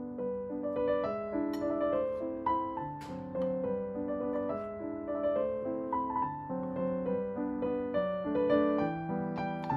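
Background piano music: a gentle melody with chords, notes changing every half second or so.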